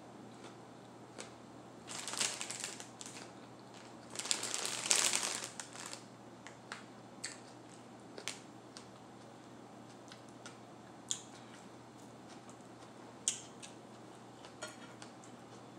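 Close-up crunchy chewing of a raw red mini sweet pepper with cream cheese. There are two spells of crunching, about two and four seconds in, then scattered small mouth clicks.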